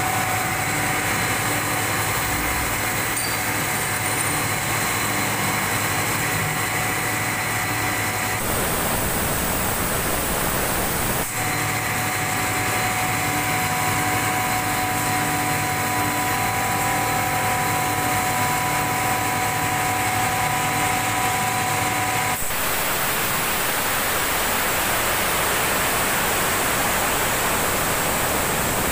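18-inch CKE exhaust fan running with a steady rush of air. Over it sits a steady hum with higher whining tones that drops out abruptly about eight seconds in, comes back about three seconds later, and drops out again a little past twenty seconds, leaving only the air rush.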